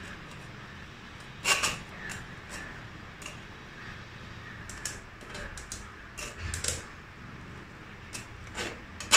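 Metal potato masher pressing boiled potatoes through a stainless steel mesh sieve: irregular clinks, knocks and scrapes of metal on the mesh, the loudest about a second and a half in and a sharp one at the very end.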